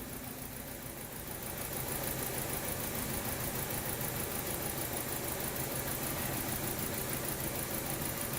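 Four-cylinder engine of a 2012 Chevy Cruze idling, getting a little louder about a second and a half in. It is running rough with cylinder number 2 misfiring (not firing).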